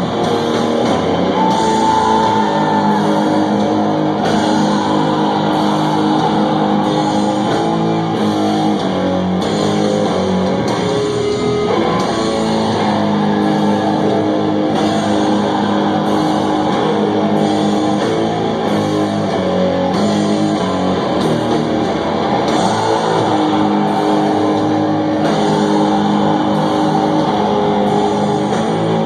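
Doom metal band playing live: electric guitars in slow, long-held chords.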